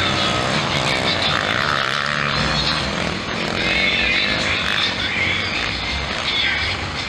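Several motocross bikes' engines revving through the turns. The pitch rises and falls as the riders work the throttle, with several bikes overlapping.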